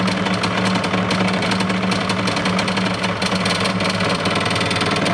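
DeWalt 788 scroll saw running with a steady hum and a fast clatter. The noise is one the owner strongly suspects comes from worn bearings in the rear vertical rocker.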